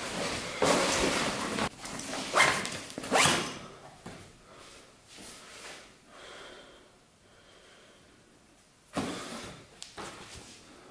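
A fabric backpack being handled and packed: rustling and quick scraping strokes for the first three seconds or so, then quieter, with another short rustle about nine seconds in.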